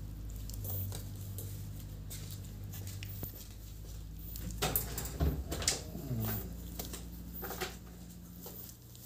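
One-month-old Exotic American Bully puppies scuffling as they wrestle in a wire crate, with a cluster of clicks and knocks from paws and bodies against the crate floor and bars about halfway through. A steady low hum runs underneath.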